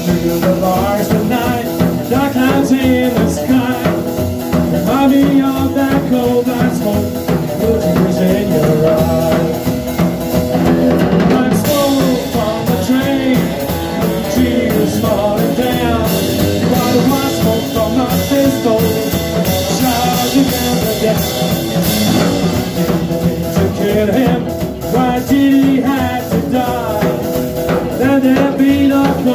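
Live rock and roll band playing: electric guitar, acoustic guitar, upright double bass and drum kit, with the cymbals brightest in the middle of the stretch.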